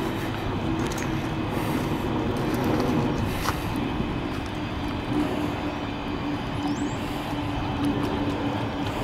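Steady rumble of distant traffic with a faint, even hum.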